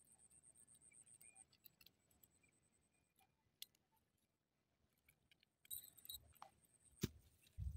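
Near silence, with faint scattered clicks and rustling and one sharper click near the end.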